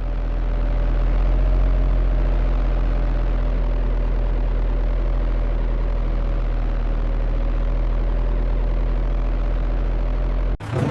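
Bulldozer's heavy diesel engine running steadily with a deep, even hum, then cutting off suddenly near the end.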